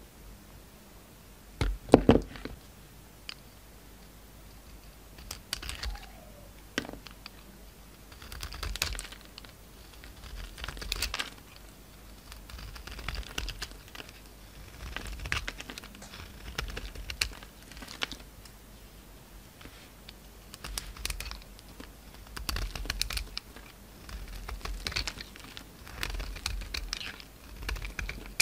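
Utility knife blade shaving and slicing through bars of soap: crisp scraping crackles as flakes and chunks break away, in strokes about every two seconds. A sharper knock about two seconds in is the loudest moment.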